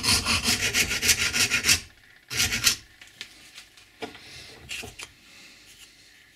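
A hand file rasping across the edge of a plywood profile held in a bench vise, with quick back-and-forth strokes of about six a second that stop about two seconds in. A short burst of filing follows, then a few faint knocks as the vise is opened and the piece is taken out.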